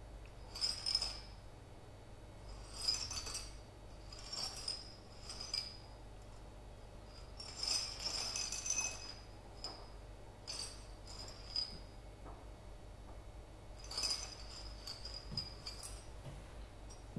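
Light clinking and jingling of small hard objects shaken or handled in the hands, coming in short bright bursts every second or two, with a longer run about eight seconds in.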